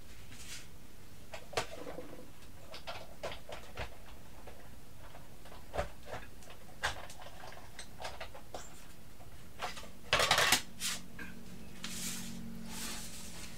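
An embossing folder being run through an embossing machine: scattered clicks and knocks, a louder clatter about ten seconds in, then a steady low hum near the end.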